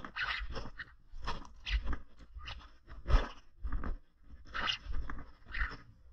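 Footsteps crunching and scraping on loose broken rock and gravel, an uneven step about every half second to second, each with a dull thud; the heaviest step falls about three seconds in.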